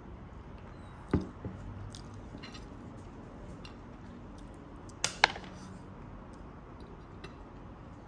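Tableware being set down on a wooden table: a glass mug put down with a knock about a second in, then two quick, sharp clinks about five seconds in, as of a metal fork laid back down.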